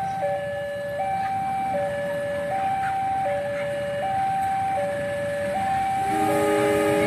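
Indonesian level-crossing warning alarm sounding its two-tone high-low chime, switching pitch about every three-quarters of a second, over the rumble of a diesel-hauled passenger train approaching. About six seconds in, the locomotive's multi-tone air horn sounds a held chord.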